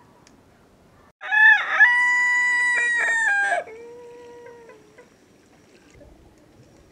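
Rooster crowing once, a loud cock-a-doodle-doo starting about a second in and lasting a couple of seconds. It ends in a fainter, lower drawn-out note.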